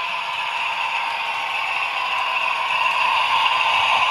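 HO-scale model train, a Jouef BB 67455 diesel locomotive hauling coaches, running along the track. It makes a steady whirring rattle of motor and wheels on the rails, which grows louder in the second half as the coaches pass close by.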